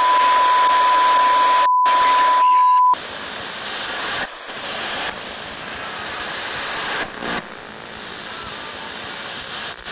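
Electronic static hiss with a steady, high single-pitch test-tone beep over it, cut by a brief dropout. About three seconds in the beep stops and the hiss carries on more quietly, shifting slightly in level.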